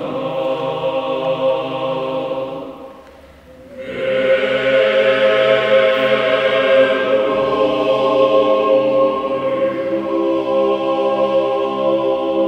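Mixed church choir of men's and women's voices singing in long held chords, breaking off briefly about three seconds in before coming back in on a sustained chord.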